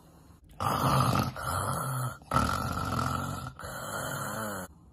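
A child's voice imitating loud snoring like a pig: two long harsh snores in a row, the first starting about half a second in and the second trailing off near the end.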